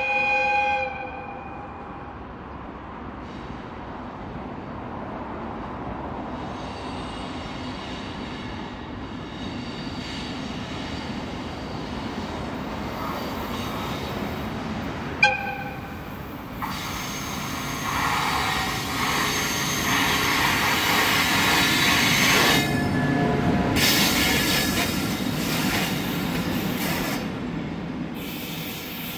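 JR West EF65 electric locomotives' horn: a long blast ends about a second in, and a second short blast sounds about halfway. Then the pair of locomotives passes close, with wheel squeal and the rumble of wheels on the rails, easing off near the end.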